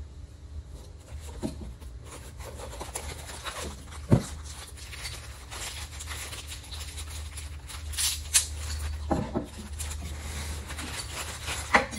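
Rustling of packaging and light clatter of plastic tool parts being handled while unboxing, with scattered clicks and one sharp knock about four seconds in.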